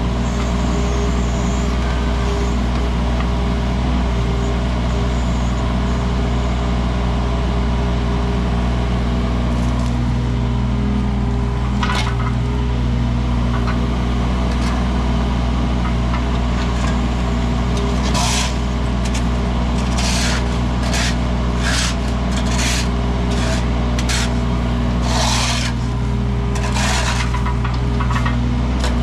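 Wacker Neuson mini excavator's diesel engine running steadily while it digs. A single scrape comes about twelve seconds in, and a string of short scrapes follows in the last ten seconds as the bucket drags through soil.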